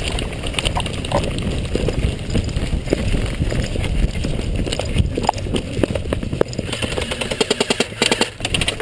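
Rumble of wind and movement with scattered footfalls and gear knocks as airsoft players run. About two seconds before the end, an airsoft electric rifle fires full-auto bursts, a fast even clatter of shots with a brief break between bursts.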